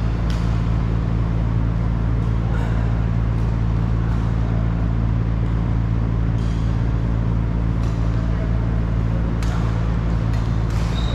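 Badminton hall ambience: a steady low hum throughout, with a few sharp clicks of shuttlecock hits and a short, high shoe squeak about six and a half seconds in.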